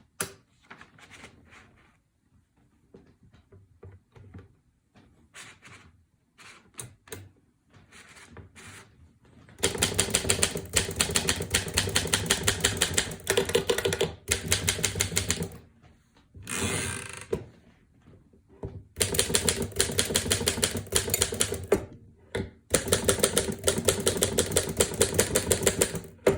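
Imperial Model D manual typewriter being typed on: a few scattered, quieter key clicks at first, then fast runs of rapid keystrokes from about a third of the way in. A brief sliding sound comes in one pause between the runs.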